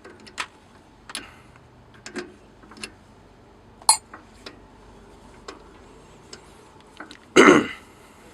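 Irregular light metallic clicks and taps from hand tools working the Loctited brass piston off an FX air rifle regulator, with one louder rasping sound lasting under half a second near the end.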